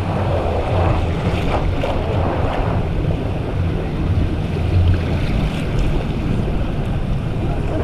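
Water park river rushing through a rapids section, a steady churning of water with low rumble from wind or water on the microphone.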